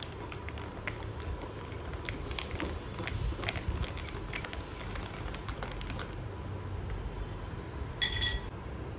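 Metal spoon stirring a drink in a glass tumbler, clinking against the glass in quick irregular ticks for about six seconds. Near the end comes a single ringing clink as the spoon is set into a glass bowl.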